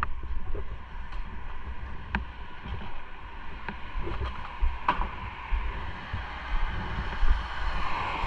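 Motorcycle on the move: wind rumbling on the microphone over steady road hiss, with a few sharp clicks about two and five seconds in.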